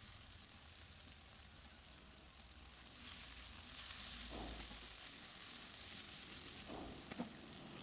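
Scrambled egg and goat meat frying together in a pan as they are stirred, a faint steady sizzle that grows louder about three seconds in, with a few light knocks.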